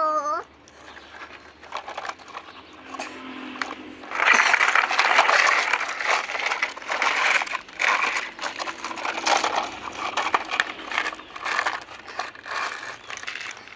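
Irregular crinkling and rustling, like something being handled and crumpled, getting loud about four seconds in and going on in uneven bursts. A brief child's vocal sound at the very start.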